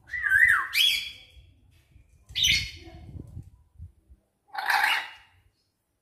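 Caged lory giving three loud, harsh squawks about two seconds apart, the first wavering up and down in pitch.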